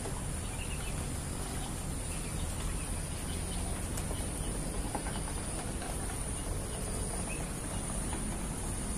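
Steady high-pitched drone of an insect chorus over a low background rumble, with a few faint chirps.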